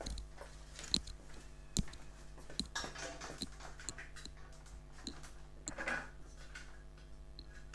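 Scattered sharp plastic clicks and taps as blue plastic top-cover pieces are pressed onto the cells of a LiFePO4 battery pack, with a short scrape about six seconds in.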